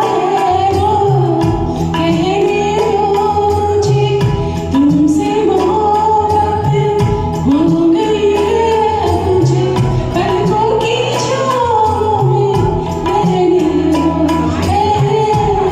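Music of a Bollywood film song: a flowing melody over a steady bass accompaniment.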